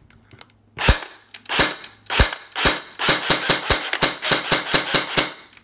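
Cyma CM.037 electric airsoft rifle (AEG) firing, quite loud: four single shots about half a second apart, then a quicker string of about a dozen shots.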